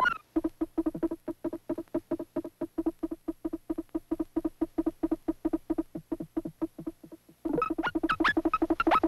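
Synthetic electronic film score made directly on the film's optical sound track: a rapid, stuttering pulse on one low note, quiet at first. About seven and a half seconds in it turns loud, with sharp rising chirps over the pulse.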